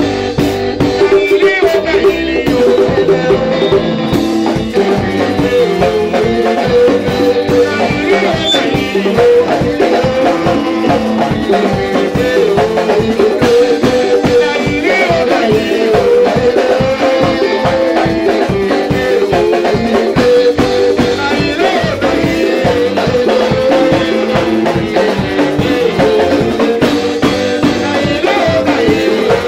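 Live worship music with a steady drum beat and a rattle, with a man singing over it through a microphone and sound system.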